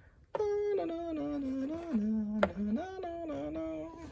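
A voice humming a simple wordless tune in held notes that step up and down, starting about a third of a second in, with one short click partway through.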